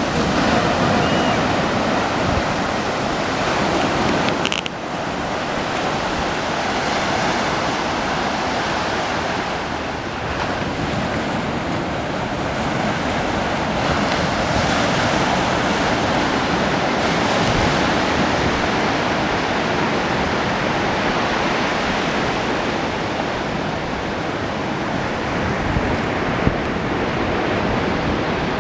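Ocean surf breaking and washing up on a beach: a steady rush of waves that swells and eases, with a brief dip about four and a half seconds in.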